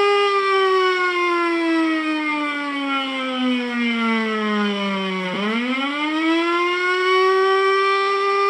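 Electronic siren sound effect played loud through a sound effect box's built-in speaker. It runs in a repeating cycle: a wail that falls slowly in pitch for about five seconds, then jumps back up and rises quickly to its starting pitch.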